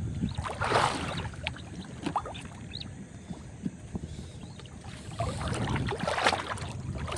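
Splashing and sloshing in shallow water, with a louder surge about a second in and another near the end, over a steady low rumble.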